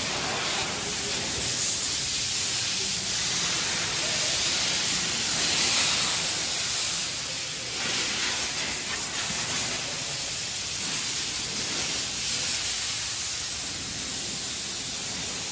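Car wash equipment hissing steadily and loudly: a dense, high jet hiss, a little louder about five seconds in and easing slightly after about eight seconds.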